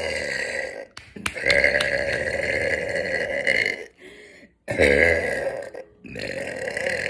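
A woman belching loudly: four long, drawn-out burps in a row with short breaks between them, the longest lasting about two and a half seconds from about a second in.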